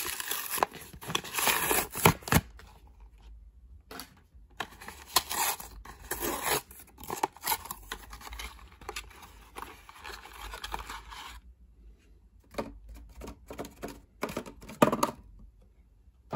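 A cardboard-and-plastic toy car box being opened by hand: cardboard tearing and scraping and plastic crinkling in several spells, then a few sharp clicks, the loudest near the end, as the plastic tray comes out.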